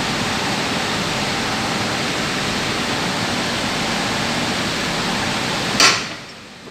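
Steady rushing noise, even and unchanging, like a fan or blowing air, with one sharp knock near the end.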